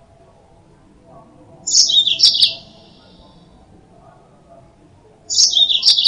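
Yellow-fronted canary (Mozambique canary) singing: two short bursts of high, quick twittering notes, each about a second long, about three and a half seconds apart.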